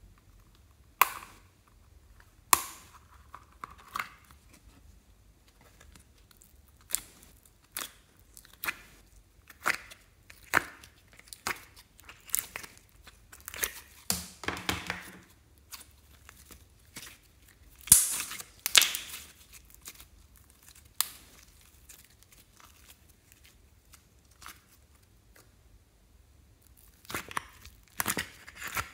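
Slime being peeled and pulled out of a compartmented plastic container: irregular tearing and crackling sounds with sharp plastic clicks, the loudest cluster about two-thirds of the way through.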